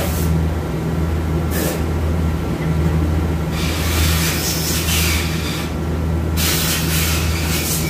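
A steady low machine hum, with bursts of hissing noise: a short one about one and a half seconds in, then two longer ones from about the middle to the end.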